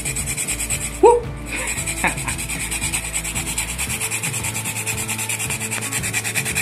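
Whole nutmeg rasped on a fine Microplane-style grater in rapid, even scraping strokes, about six or seven a second, with a brief rising squeak about a second in.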